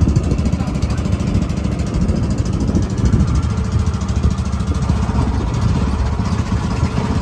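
Small wooden river boat's engine running steadily as a low rumble while it crosses the river.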